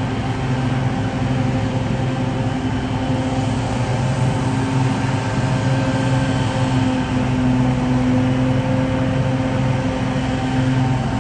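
Small engine of a ride-on lawn machine running steadily at an even hum, its pitch wavering slightly about two-thirds of the way through.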